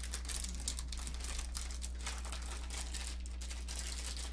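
Plastic candy bag of Sour Patch Kids crinkling as it is handled: a continuous run of small crackles, over a steady low electrical hum.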